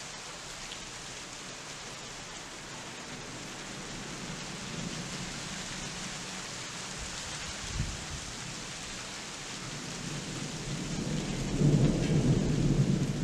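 Steady rain falling through a thunderstorm. Thunder rumbles softly about four seconds in, there is a brief low thump a little past halfway, and a louder roll of thunder swells near the end.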